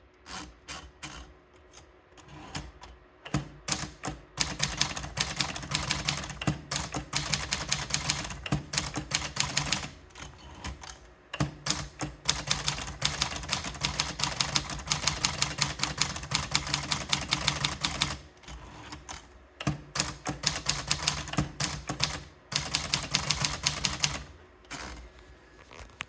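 Triumph Tippa portable typewriter being typed on: a few scattered key strikes, then three long runs of fast typing with short pauses between them.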